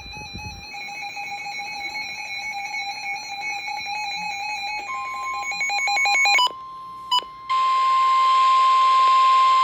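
Electronic alert tones, several pitches together with a slight warble, breaking into rapid pulses about six seconds in. After a short gap, a steady single-pitch alarm tone over radio static, the 1050 Hz warning alarm tone that signals an emergency weather warning broadcast.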